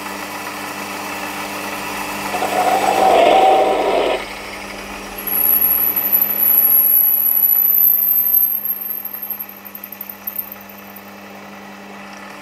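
Small metal lathe running steadily while a 9 mm twist drill in the tailstock bores into a phosphor bronze bush. There are two loud spells of cutting, about two to four seconds in and about five to eight seconds in, with a thin, slightly rising high squeal through the second. Then it drops back to the lathe running with a few light ticks.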